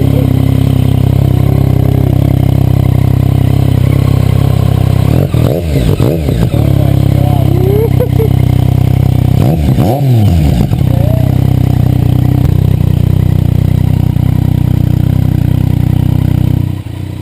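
Yamaha FZ-09's inline-three engine running loud and steady through a newly fitted M4 aftermarket exhaust, its dB killer still in place. The throttle is blipped briefly about five and ten seconds in, the revs rising and falling back each time.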